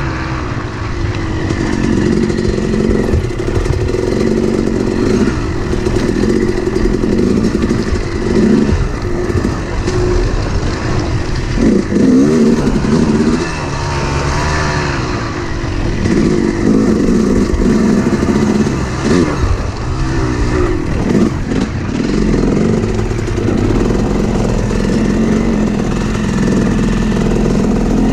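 Yamaha YZ250X two-stroke dirt bike engine revving up and down as the bike is ridden over a rocky trail, heard from on the bike with wind on the microphone.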